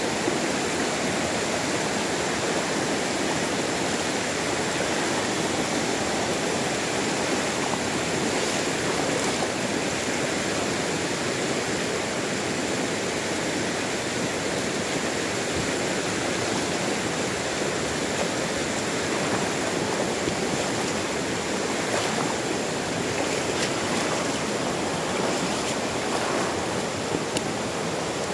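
Shallow river rushing steadily over rocks and riffles.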